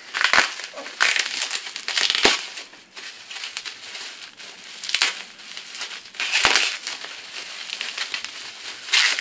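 Wrapping material crinkling and rustling in several bursts as a gift is unwrapped by hand.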